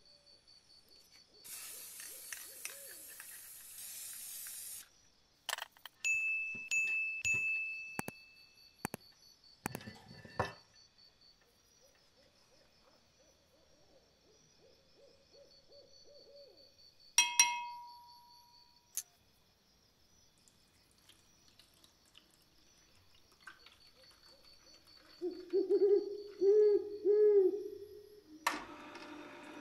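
Aerosol can of chain wax spraying with a hiss for about three seconds, followed by scattered clicks and a sharp ding. Near the end come three or four short calls that rise and fall in pitch, then a Tormek T-4 water-cooled sharpener is switched on and its motor runs steadily.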